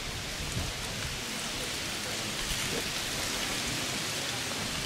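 Steady rushing hiss with no clear pitch, a little louder in the middle.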